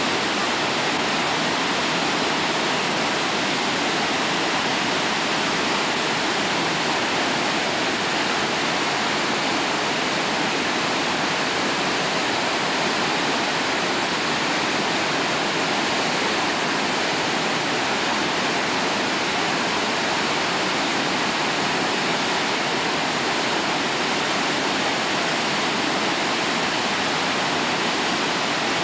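Steady rushing of white water over the rocky rapids of the Uruguay River narrows, an even roar with no breaks.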